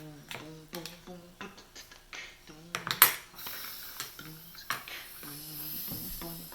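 Metal cutlery clinking against a dish, with one sharp clink about three seconds in, between short wordless vocal murmurs.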